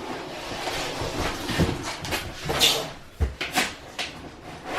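Large cardboard box of a PC case being turned over by hand: cardboard scraping and rustling with several knocks and a thump a little over three seconds in.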